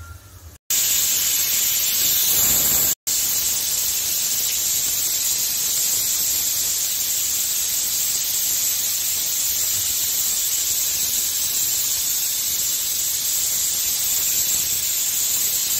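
Aluminium pressure cooker whistling: a loud steady hiss of steam escaping past the weight valve, the sign that the cooker is at full pressure. It cuts out briefly twice in the first three seconds, then carries on unbroken.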